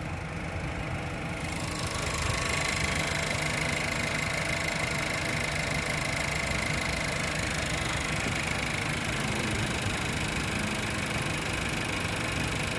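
Volkswagen Golf petrol four-cylinder engine idling steadily under an open bonnet, a little louder from about two seconds in.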